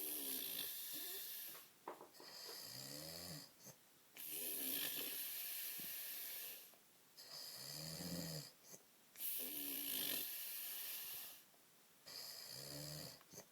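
A man snoring in deep sleep: a low snore followed by a long hissing breath, repeating about every four seconds.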